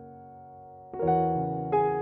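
Slow, soft piano music: a held chord fades away, then new chords are struck about a second in and again near the end.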